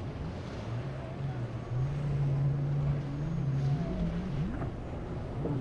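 Motorboat engine running at a steady pitch over rushing water, the pitch climbing a little past the middle and then swinging up and down quickly near the end, as with throttle changes.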